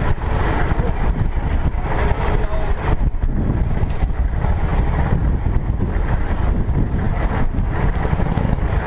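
Classic car's engine running as the car rolls slowly, picked up by a camera mounted on its hood, under a dense, steady low rumble.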